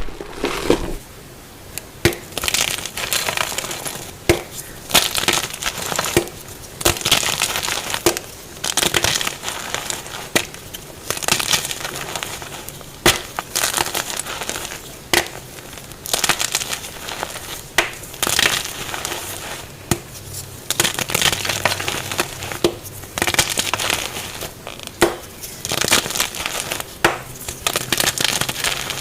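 Blocks of gym chalk being crushed and crumbled by hand, with repeated sharp cracks and gritty crunching throughout.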